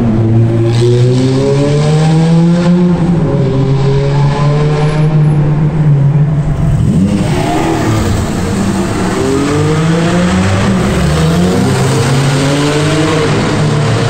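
Sports car engines accelerating hard, the engine pitch climbing, falling back and climbing again several times as the cars rev and shift up through the gears, echoing off the tunnel walls.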